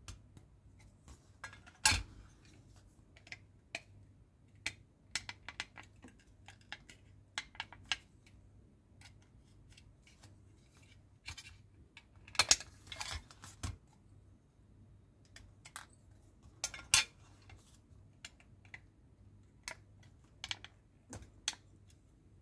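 Hard plastic model-kit parts handled and pressed together: irregular clicks and knocks as a door's inner cover is fitted against its frame, with a few louder knocks about 2 s in, around 12 s and about 17 s in.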